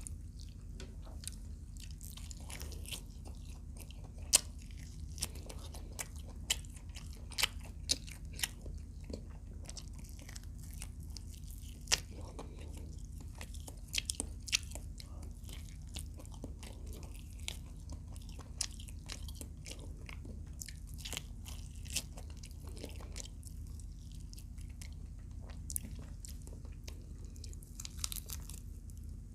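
Close-miked chewing and crunching of fried adobo quail, with sharp crunchy bites scattered throughout, most of them in the first half. A steady low hum runs underneath.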